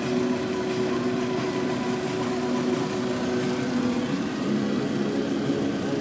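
Truck engine running steadily, heard from inside the cab, its note shifting a little about four and a half seconds in.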